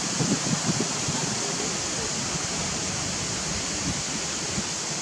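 Steady, even hiss of outdoor background noise, with a little low wind rumble on the microphone in the first second that fades away.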